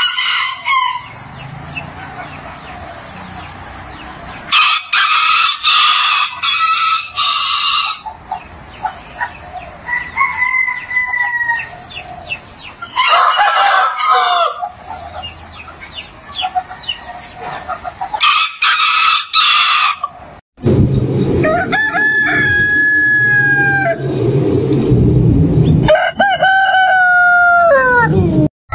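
Roosters crowing: about half a dozen separate crows with gaps of a few seconds between them, the last one sliding down in pitch at its end. The sound cuts out briefly about twenty seconds in, and the crows after that sit over a loud low rumble.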